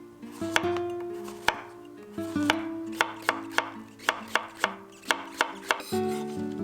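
Knife chopping vegetables on a cutting board: a few separate cuts, then a quicker run of even strokes at about three a second, over soft background music.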